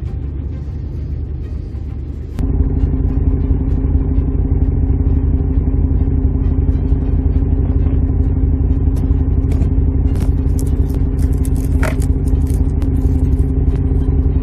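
Truck engine running steadily with a deep, even drone that jumps abruptly louder about two seconds in, with scattered light clatters and clicks over it.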